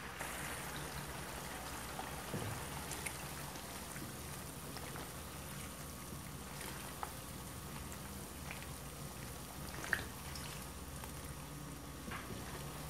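Used frying oil with blended lemon pulp bubbling and frying at a boil in a large pan: a steady hiss with scattered crackles and pops, the sharpest about ten seconds in.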